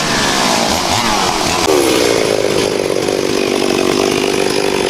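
Chainsaw running hard while cutting through a fallen tree trunk. Its pitch slides down over the first couple of seconds, then holds steady.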